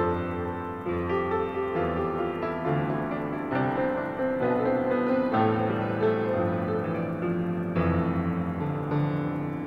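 Piano music: chords and a melody, with the notes changing about once a second.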